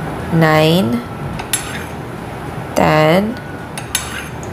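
A metal spoon clinking against a mug and a glass bowl as evaporated milk is scooped and poured in spoonfuls. A voice counts the spoonfuls aloud, one short number about every two and a half seconds, twice here.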